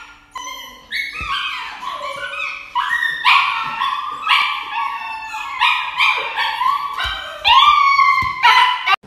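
Dog howling and yelping in a rapid run of high, rising, wavering cries, about one or two a second and loudest near the end, in distress while held for an injection.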